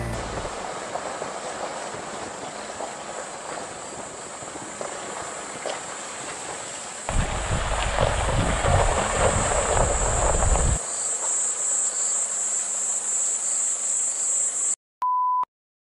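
SsangYong Rexton's tyres rolling slowly over a gravel forest track, under a steady high insect trill. About seven seconds in the noise gets louder and deeper for a few seconds, then eases back. A short single beep comes near the end.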